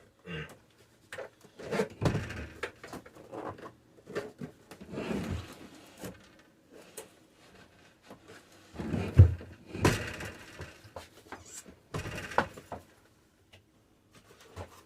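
Irregular knocks, thunks and scraping as an old Dometic RV refrigerator is worked loose and shifted in its cabinet, with the heaviest thud about nine seconds in.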